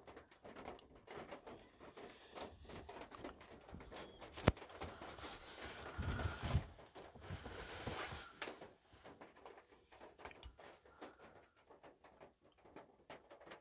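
Light rain pattering on a van's roof and windows: a steady scatter of small drop ticks, one sharper tap about four and a half seconds in, and a louder swell of rushing noise with some low rumble from about five to eight seconds.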